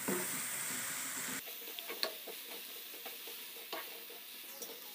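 Chopped onions, curry leaves and dried red chillies sizzling in hot sesame oil in a nonstick kadai as they are sautéed toward golden brown, with light scraping ticks from a wooden spatula stirring them. The sizzle eases a little about a second and a half in.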